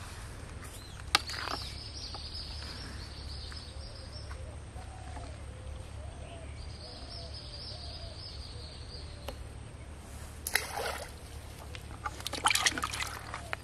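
A small fish dropped into a plastic bucket of water, splashing and sloshing in short bursts near the end, with a briefer splash a little before.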